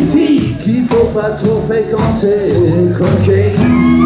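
Live band music with electric guitar, played loud and without a break.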